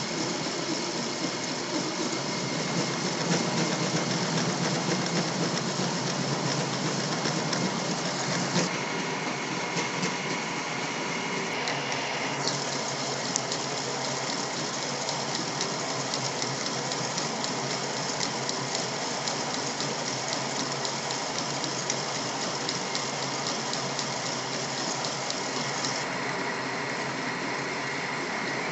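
Lathe running with its cutting tool turning a step down the outer diameter of a round workpiece: a steady mechanical running sound with a fine, rapid ticking, its tone shifting a few times.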